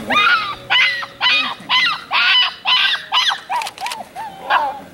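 A 5-week-old puppy yipping in a rapid string of short, high-pitched calls, about two a second, while it bites and tugs at a bite pillow.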